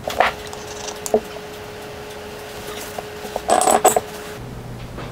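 Light clicks and taps from handling a small plastic bottle of 3-in-One oil while oiling a bench vise's nut, with a short burst of clicking and rustling a little past halfway as the bottle is put down and a cloth rag taken up. A faint steady hum stops shortly after.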